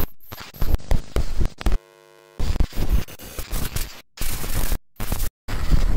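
VHS tape static and glitch noise: loud bursts of hiss and crackle, chopped up by sudden dropouts to silence, with a short buzzing tone about two seconds in.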